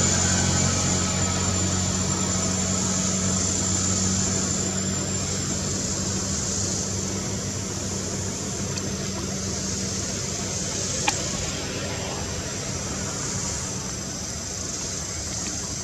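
A motor vehicle's engine running, its low hum fading over the first few seconds, over a steady high whine and background hiss. One sharp click about eleven seconds in.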